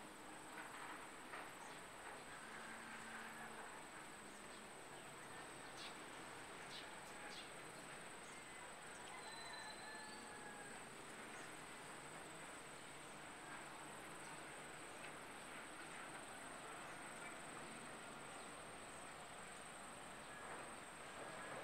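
Faint outdoor ambience dominated by a steady, high-pitched insect drone, with a few faint ticks and a brief faint whistle about ten seconds in.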